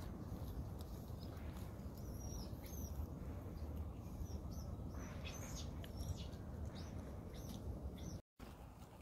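Small birds giving short, high chirps, a run of them between about two and seven seconds in, over a steady low rumble. The sound drops out briefly near the end.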